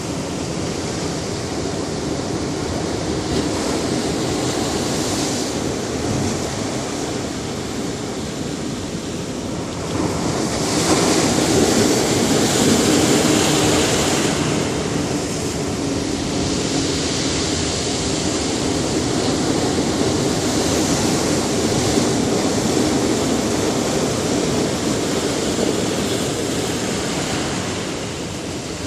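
Ocean surf washing onto a beach, a steady rush that swells and fades with each wave. The biggest wave breaks about ten seconds in.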